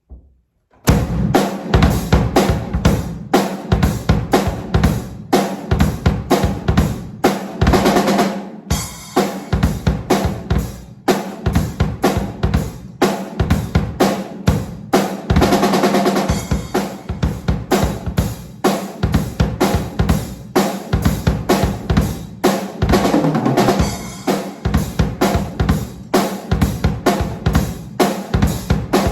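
A drum kit playing a steady, driving beat, starting about a second in.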